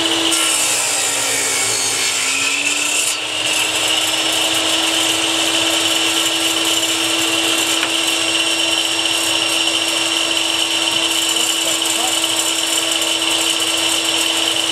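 Table saw running at speed as a crosscut is made through a board on its sled. About a second in, the blade's pitch sags under the cut and then recovers to a steady running tone.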